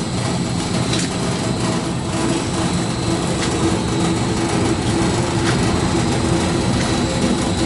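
Coconut shell peeling machine running steadily, its 3 HP electric motor driving a V-belt and gearbox, a constant mechanical hum with a few faint ticks.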